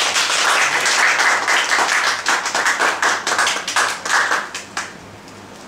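Audience applauding: a dense patter of many hand claps that dies away about five seconds in.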